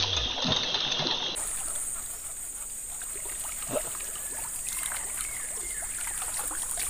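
Topwater frog lure pulled across the swamp surface on the retrieve, making small irregular splashes and gurgles, with a low thump at the start and one sharper splash near the middle. A steady high-pitched insect drone runs underneath and jumps higher in pitch about a second and a half in.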